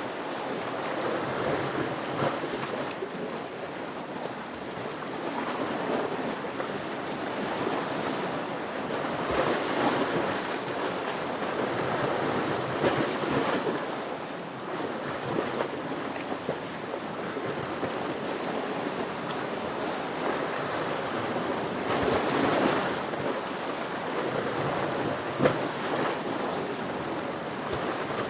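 Ocean waves and surf: a continuous rush of water that swells louder every several seconds as waves come in, with a brief sharper splash about 25 seconds in.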